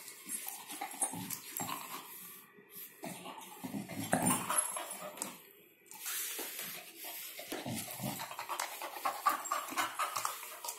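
Black Labrador panting in irregular spurts as it plays with a red plastic ball.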